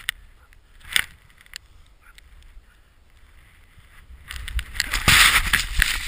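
Deep powder snow hissing and spraying under a rider's turns, with wind buffeting the camera microphone. Two short swishes at the start and about a second in, then a longer, louder rush of snow spray over the last two seconds.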